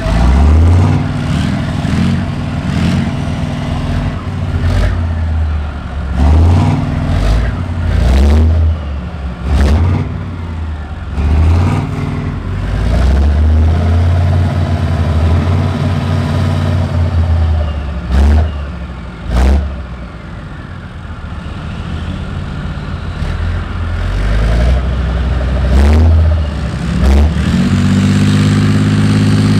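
Big diesel engines of tracked armoured vehicles idling and revving up and down again and again, with sharp clacks between the revs. The engines ease off for a few seconds about two thirds of the way through, then climb to a held high rev near the end.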